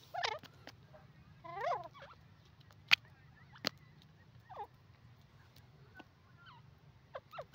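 Grey francolin giving a few short, soft calls that slide downward in pitch, spaced a second or more apart. Two sharp clicks sound about three seconds in.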